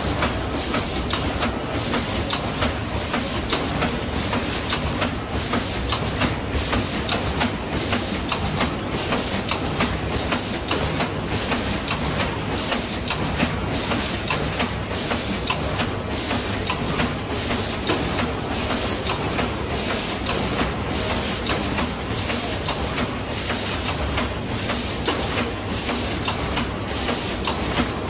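Cornetto cone filling machine running: a steady mechanical clatter, with a short hiss of compressed air about once a second as the machine cycles.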